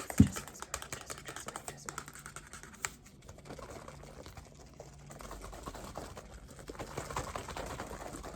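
Rapid, irregular tapping and clicking close to the microphone, with one strong low thump just after the start; from about halfway through the taps give way to a softer, denser crackling.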